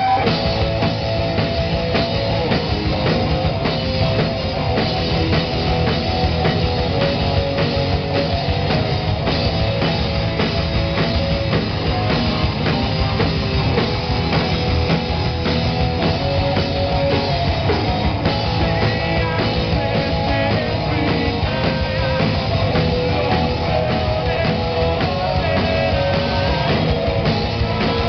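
Live punk-rock band playing loudly: distorted electric guitars driven by a drum kit, without a break.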